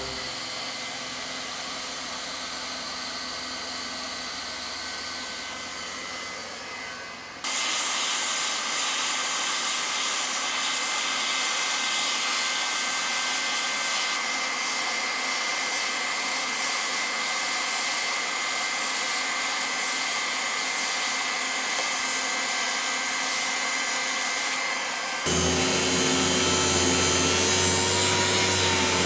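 Leister TRIAC ST hand-held hot-air tool running: a steady blowing hiss with a thin, steady whine. The sound jumps louder about seven seconds in and again near the end.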